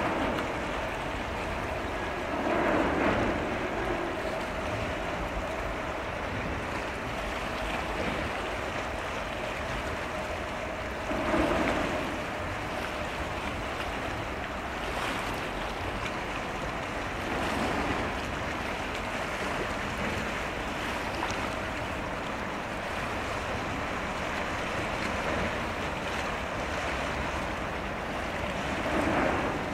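Waterside ambience: water washing against the shore with wind on the microphone and a faint steady hum, swelling into louder washes a few times.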